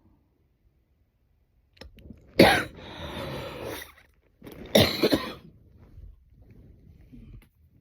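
A woman coughing twice, about two seconds apart, the first cough drawn out for over a second.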